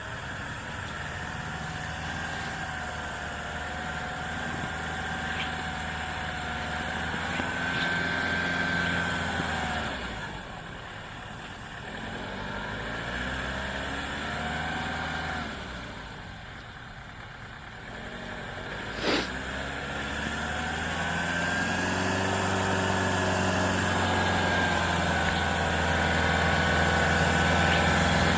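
Off-road vehicle engine pulling under load, its revs rising and falling as it works along the track. It eases off twice and grows louder toward the end, with one sharp click about two-thirds of the way through.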